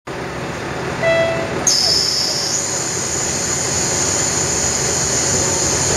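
Diesel railcar moving slowly away from a station, its running noise steady underneath, while the wheels squeal on the rails in a high, steady tone from under two seconds in that jumps higher partway. A short tone sounds briefly about a second in.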